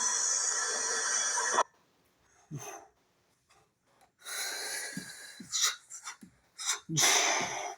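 Steady hissing noise of a subway train that cuts off abruptly about a second and a half in, followed by scattered short rustles and breath-like sounds close to the microphone.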